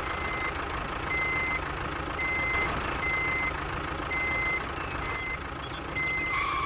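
Vehicle reversing alarm beeping seven times, about once a second, each beep a short single high tone, over a steady rumbling background noise.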